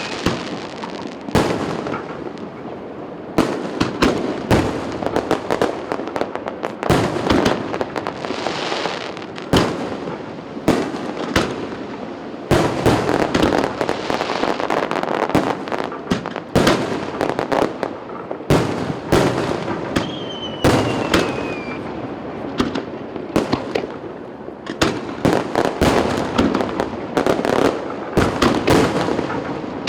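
Aerial fireworks going off in a rapid barrage: many sharp bangs of bursting shells close together, with crackling between them and a falling whistle about two-thirds of the way through.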